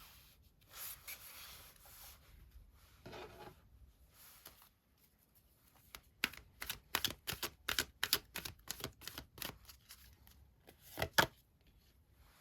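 Tarot cards handled on a table: a soft rustle of shuffling early on and a dull thump, then a quick run of sharp card clicks and snaps, the last one the loudest.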